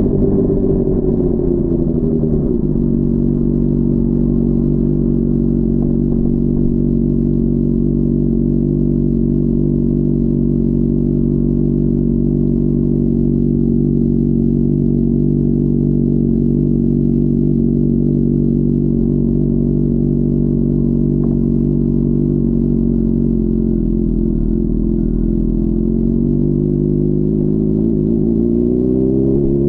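Honda CBR600RR inline-four engine, its pitch falling as the revs drop over the first couple of seconds. It then holds a steady note for about twenty seconds and climbs again near the end as the revs rise.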